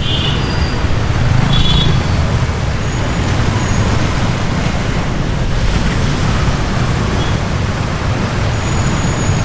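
Road traffic in a jam heard from a scooter: a steady, loud low rumble of engines, with a couple of brief high-pitched sounds in the first two seconds.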